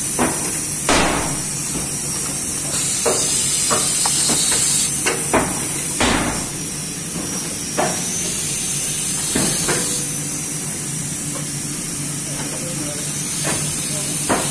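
Muller Martini Amigo Plus perfect binder running: a steady hiss and hum, with about a dozen irregular sharp mechanical clacks and knocks.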